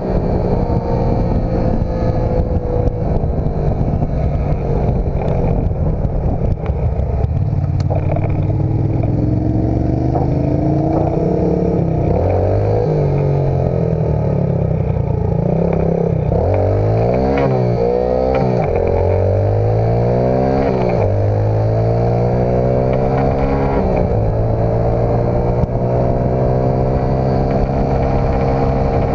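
Dirt bike engine running under way, its pitch stepping up and down with throttle and gear changes. In the middle there are several quick revs that rise and fall.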